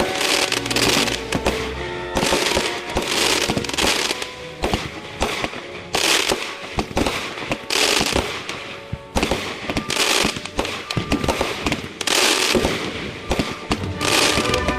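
Consumer aerial fireworks going off in quick succession, sharp bangs and crackling bursts several times a second, with background music playing under them.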